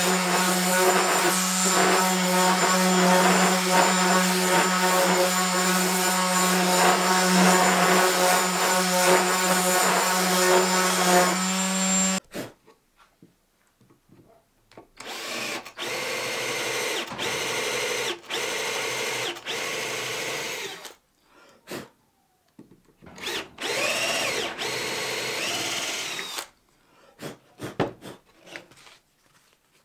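Electric sander running steadily against a wooden frame arm, a constant hum that cuts off suddenly about twelve seconds in. After a short pause, a cordless drill bores into a block of wood in several runs with brief stops between, its pitch rising and falling with the trigger.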